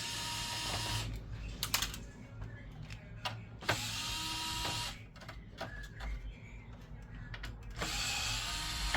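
Electric screwdriver running in three short bursts of about a second each, with small clicks and taps between.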